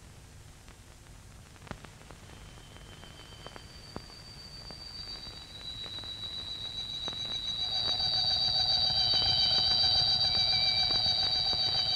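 Several steady high-pitched tones on an old film soundtrack, entering one after another and swelling in loudness over hiss and scattered crackle clicks.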